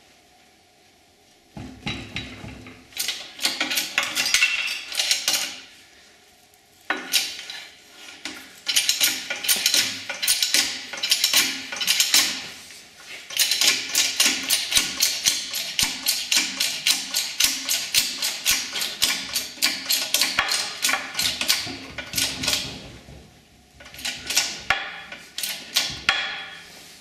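Quick runs of sharp metal-on-metal tapping and clinking, several strikes a second, as a steel bar is worked in a welded bending jig, with short pauses between the runs.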